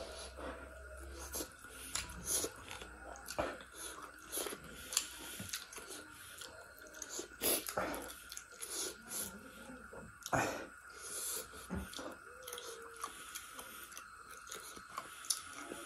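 Close-miked eating sounds: wet chewing, lip smacks and mouth clicks as a mouthful of fried rice and duck is eaten by hand, irregular sharp smacks every second or so.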